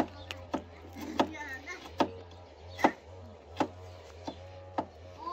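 Kitchen knife chopping on a wooden cutting board: a series of sharp knocks, about ten, unevenly spaced at roughly one or two a second.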